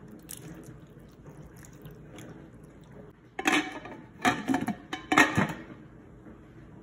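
Chicken broth pouring from a carton into a slow cooker, a faint steady trickle, then the slow cooker's glass lid set onto the crock with three loud clatters about a second apart.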